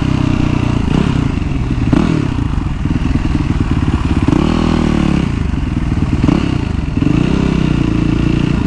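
Yamaha WR450F's single-cylinder four-stroke engine running at low speed close to the microphone, its pitch rising and falling twice as the throttle is opened and closed.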